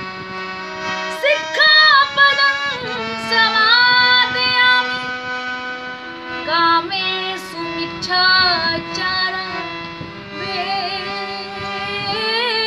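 A woman singing a Buddhist devotional song (a Buddha vandana) in an ornamented Indian style, gliding between and holding long notes over steady accompaniment.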